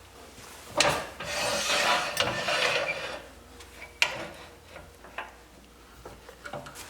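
A hand tool scraping across wood for about two seconds, just after a knock, then a sharp click and a few light taps.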